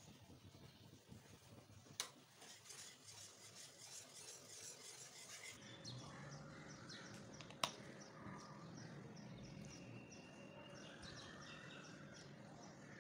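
Faint wire whisk scraping and stirring a thick mango-and-cornflour pudding mixture in a cooking pot. After a few seconds this gives way to quiet background with faint bird chirps. Two sharp clicks, about two seconds in and near the middle.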